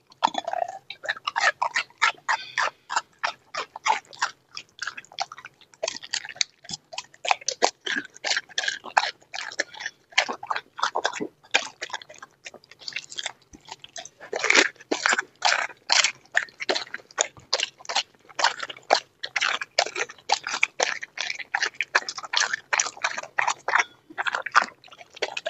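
A dog chewing and crunching raw quail, flesh and bones, in quick irregular crunches with a short lull about halfway through.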